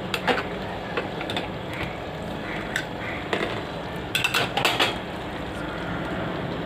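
Metal kitchen utensils clinking and rattling against the rim of an aluminium cooking pot: scattered single clicks, then a quick cluster of rattles about four seconds in, over a steady background hiss.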